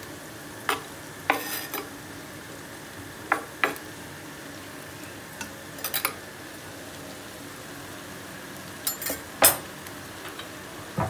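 Onions sizzling in oil in a pot, a steady hiss, as quartered tomatoes are pushed off a wooden cutting board into the pot with a knife. Short knocks and scrapes of the knife and board come now and then; the loudest is about nine and a half seconds in.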